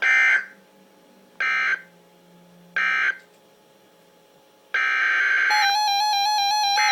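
Emergency Alert System end-of-message data bursts: three short, identical digital screeches about a second and a half apart. About two seconds before the end a steady electronic sound starts and is soon joined by tones that step up and down in pitch.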